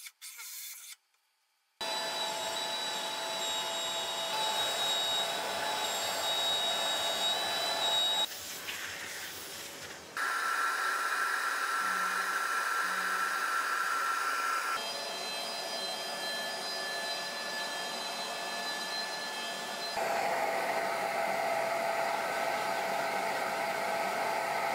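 Shaper Origin handheld CNC router and its dust extraction running steadily, a loud whining hum that starts about two seconds in after a brief silence. Its pitch shifts abruptly several times.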